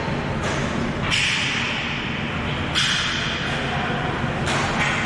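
Ball hockey game in play: a handful of sharp knocks, from sticks striking the ball or the ball hitting the boards, over a steady background din.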